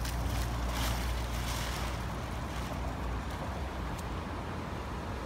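Steady low wind rumble on the microphone over an even outdoor hiss, with a few faint rustles and a light tick about four seconds in.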